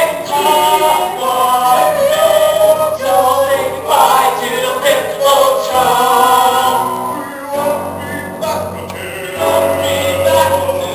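Musical-theatre cast singing together in chorus, male and female voices, over a steady low accompaniment. The singing dips about two-thirds of the way through, then swells again.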